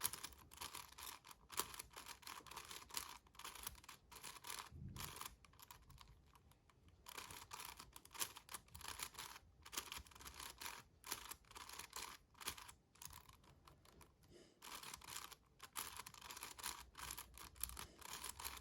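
Magnetic 7x7 Rubik's cube being turned by hand: faint, rapid runs of clicking as the layers snap into place. Two short pauses come about six seconds in and about thirteen seconds in.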